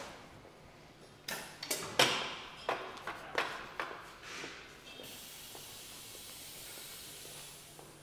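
A run of sharp knocks and clatters for a few seconds. Then a steady high hiss of air from a Dalmec vacuum-suction lifter used for lifting boxes, over a faint low hum.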